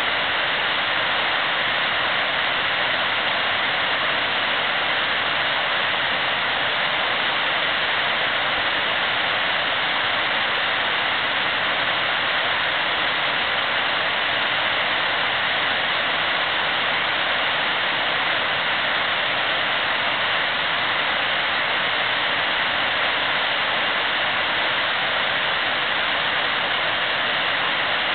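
Steady rushing of river water through rapids, an even hiss that does not change.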